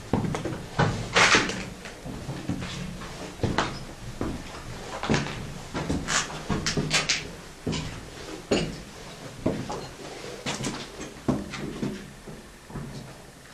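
Footsteps crunching and scraping over rubble and debris on a floor, with irregular knocks and clatters every half second to a second.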